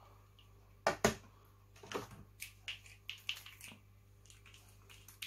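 Small plastic ink dropper bottles being handled and set down on a craft desk: two sharp clicks about a second in, then lighter taps and clicks.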